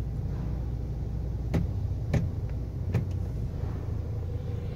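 Ford Territory engine idling in Drive with a steady low rumble and heavy vibration, a sign that the mechanic traces to a failed engine mount whose rubber has lost its clearance and touches the metal. Three short sharp clicks come in the middle.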